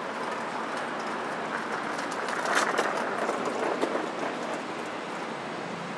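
Urban street ambience: steady traffic noise from a wide city boulevard, swelling briefly about two and a half seconds in, with a few sharp clicks.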